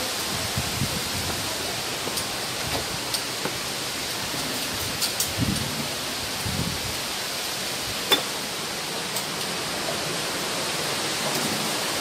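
Steady, even rush of the Shifen Waterfall's falling water, with a few light knocks and a sharp click about eight seconds in.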